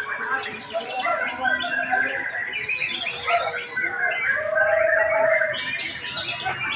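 Many caged songbirds chirping, trilling and singing at once in a dense, overlapping chorus.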